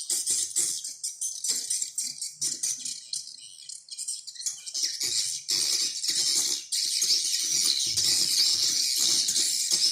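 Recorded bird calling sound: a dense, high-pitched twittering chatter of many birds, full of quick rattling clicks. It dips briefly about three seconds in, then comes back fuller.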